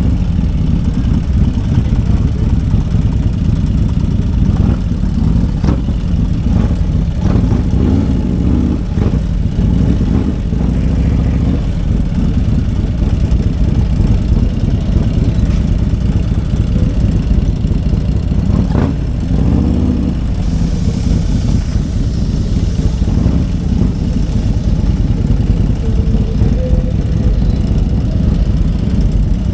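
Motorcycle engines running, a steady low rumble with a brief rev about two-thirds of the way through.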